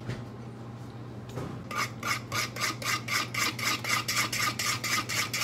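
A whisk beating batter in a mixing bowl, with quick, even rhythmic strokes at about five a second. The strokes start a little under two seconds in, as liquid is drizzled into the batter.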